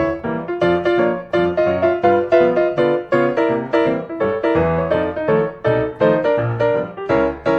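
Background piano music, a steady run of struck notes and chords, several to the second.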